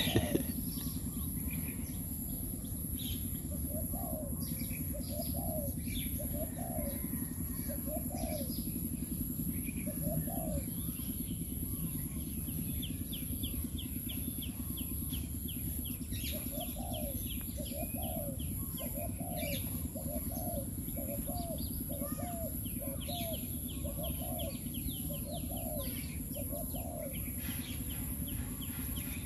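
Dove cooing: runs of short, low coo notes repeated about every second, one run in the first third and a longer, faster run in the second half. A smaller bird's quick high chirping comes in the middle, over a steady outdoor background hum.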